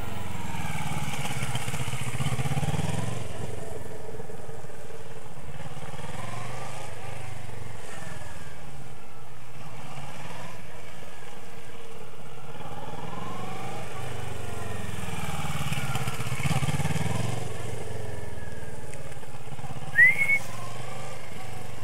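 Motorcycle engine running at low speed, its pitch rising and falling over and over as the rider opens and closes the throttle through tight turns. A short, high squeak near the end is the loudest sound.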